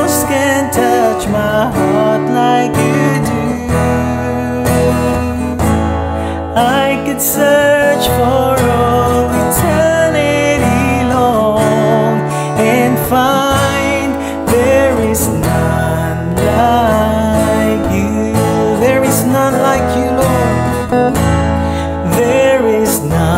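A man singing a worship song while strumming a chord accompaniment on a steel-string acoustic guitar (an RJ Aguila Series).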